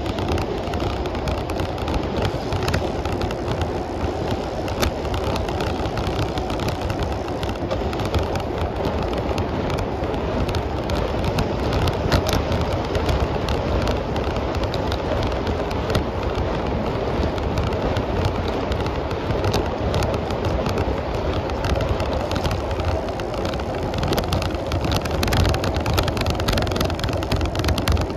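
Steady rush of wind and road noise from a moving bicycle, heard loud and close on the rider's camera, with frequent small rattles and clicks.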